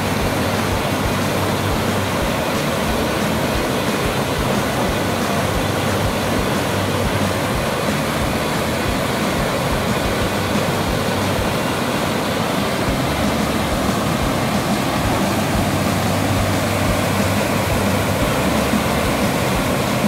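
Waterfall cascading over rocks into a pool: a loud, steady rush of falling water.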